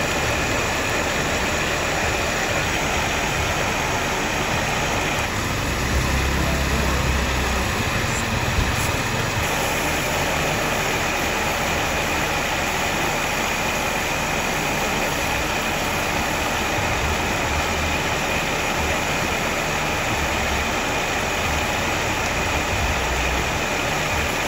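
A steady motor-like drone with a constant high whine and a hiss underneath, with uneven low rumbles.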